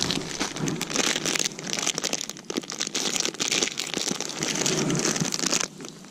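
Crinkling, crackling rustle of a plastic groundbait packet being handled, a dense run of small irregular crackles that eases off near the end.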